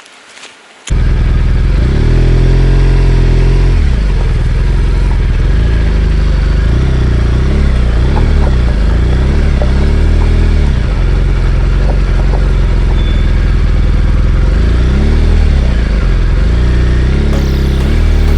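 BMW R1200GS Adventure's boxer twin running as the bike is ridden at low speed, engine speed rising and falling again and again, with road and wind noise; the sound starts suddenly about a second in.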